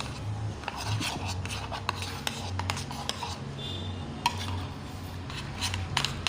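A utensil stirring a slime mixture that is still runny and not yet thickened, with irregular scraping and clinking against the bowl.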